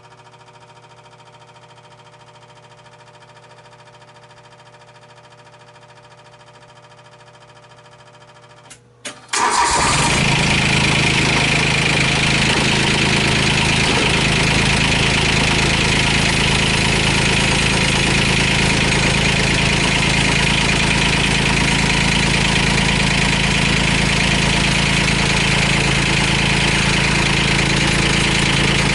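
Komatsu WA10 wheel loader's Yanmar diesel engine started about nine seconds in, catching at once and then running steadily. Before it starts, only a faint steady hum is heard.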